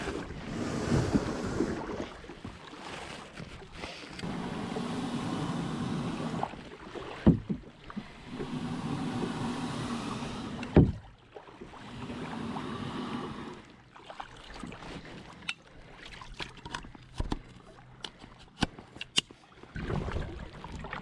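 Lifetime Charger 100 kayak being paddled: long swishes of water with each stroke, two sharp knocks against the kayak, then many small clicks and taps near the end.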